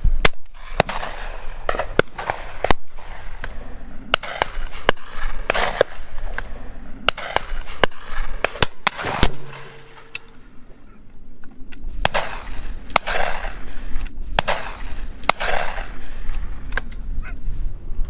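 Shotguns firing again and again at irregular intervals, often one or two shots a second, some close and loud and others fainter from guns further down the line, with a short lull about two thirds of the way in. A low rumble of wind on the microphone runs under the shots.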